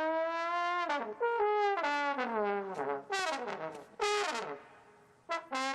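Trombone played for silly noises: a long held note that bends slightly upward, then a run of notes that slide down in pitch. After a brief drop near the end come a couple of short blasts.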